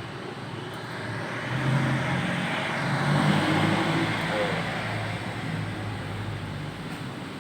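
A motor vehicle passing by, its engine and road noise swelling up over about two seconds and then fading away.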